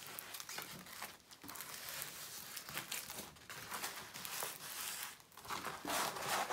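Large diamond painting canvas crinkling and rustling as it is rolled up by hand, with irregular crackles, getting louder near the end.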